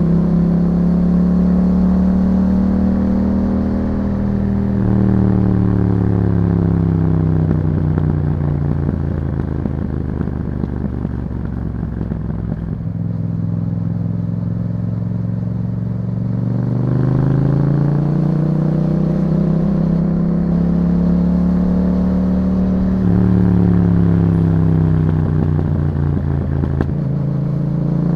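2021 Yamaha MT-07's 689 cc parallel-twin engine running through an Akrapovič exhaust while riding: it holds steady revs, eases off and slows for several seconds, picks up again, then eases off once more and climbs again near the end.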